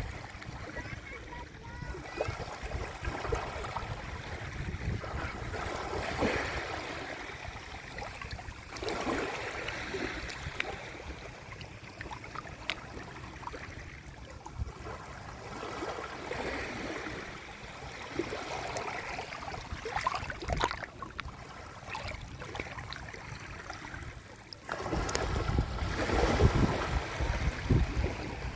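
Sea waves washing onto the shore, swelling and falling back every few seconds. About 25 seconds in, a low rumble grows louder.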